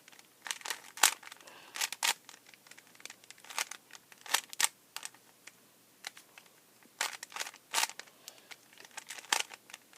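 Plastic Rubik's cube layers being turned by hand: quick, irregular clicks and clacks in clusters, with a short lull just past the middle.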